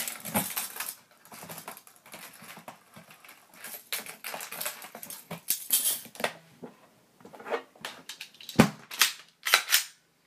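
Jiggler keys rattling and clicking in the key lock of a Honeywell safe: irregular metallic clicks, scrapes and jingles as the keys are worked in the lock, with one sharper knock near the end.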